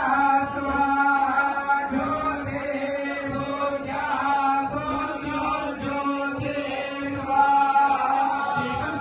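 A group chanting Hindu mantras in unison, the voices holding a steady reciting pitch.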